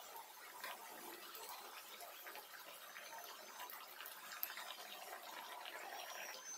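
Samosas deep-frying in hot oil, a faint steady sizzle full of small crackles and pops. One sharp click about four and a half seconds in.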